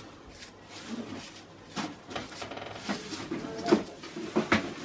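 Kitchen knife cutting through an onion held in the hand, a crisp cut every second or so, with the chopped pieces falling into a small frying pan.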